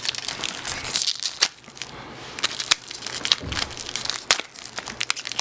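Plastic wrapper of a basketball trading card pack crinkling and tearing as it is opened, with irregular sharp crackles and snaps.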